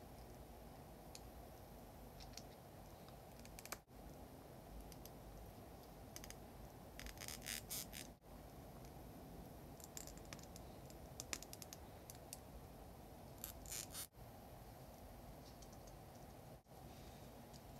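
Small plastic model-kit parts clicking and snapping together as they are fitted by hand, in scattered clicks and a few short rapid clusters, over a faint steady background hiss.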